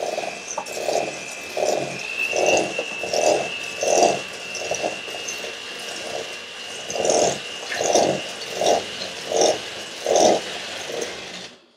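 Electric hand mixer running in a stainless steel bowl, creaming Crisco and sugar. Its motor gives a steady high whine that steps up slightly about two seconds in, over a rhythmic swish about three times every two seconds. It is switched off just before the end.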